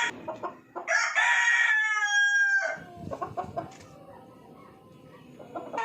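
A rooster crowing once, about a second in, a long pitched call that drops in pitch at its end.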